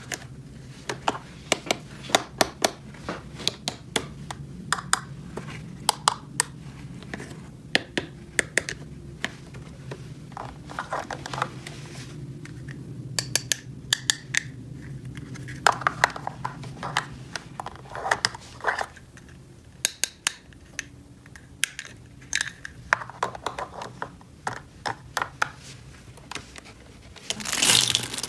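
Small plastic toy pieces being handled: many sharp clicks and taps as pieces are set down and fitted together, with light scraping, and a longer scrape near the end.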